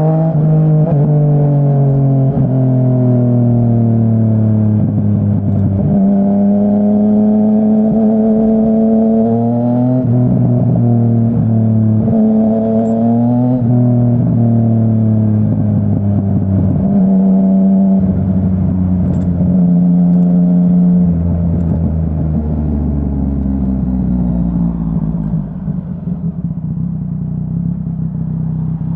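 Yamaha Tracer 900's 847 cc inline-three engine through a full Dominator HP3 aftermarket exhaust, heard from the rider's seat while riding. The revs climb and drop suddenly several times as it pulls through the gears, then ease off and build again near the end.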